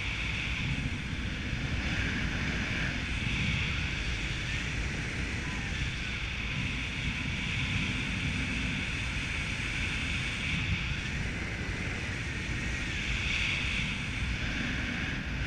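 Steady rushing wind over the microphone in flight, with a low buffeting rumble and a hiss that swells and eases every few seconds.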